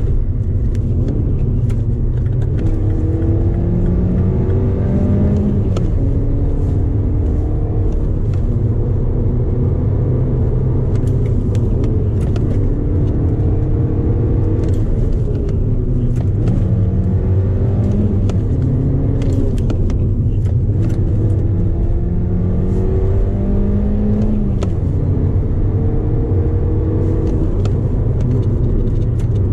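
Mini Cooper R56 engine and de-catted exhaust heard from inside the cabin on the move: the revs climb, drop at each gear change and climb again, several times, over a steady road rumble.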